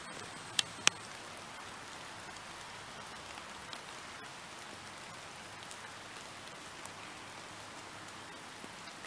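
Steady rain falling, an even soft hiss, with two sharp taps close together about half a second to a second in.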